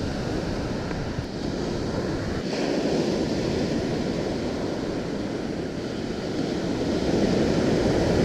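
Ocean surf breaking and washing up the sand, a dense continuous rush that swells louder near the end. Wind buffets the microphone with a low rumble.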